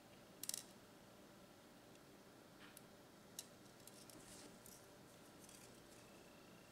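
Near silence with a few faint small clicks as glass beads and thin beading wire are handled, the loudest about half a second in.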